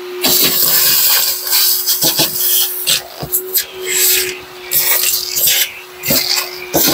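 Shop vacuum running with a steady motor hum, its hose nozzle sucking rust flakes and debris off a rusted steel cab floor. The suction noise swells and drops as the nozzle is moved over the floor.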